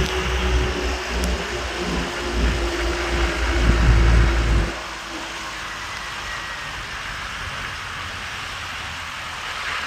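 Road and wind noise from a moving car, a steady hiss throughout. Heavy low wind buffeting on the microphone in the first half stops abruptly about halfway through.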